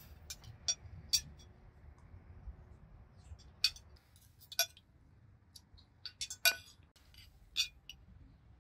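Cutlery and dishes clinking: about a dozen light, irregular clinks, the loudest about six and a half seconds in.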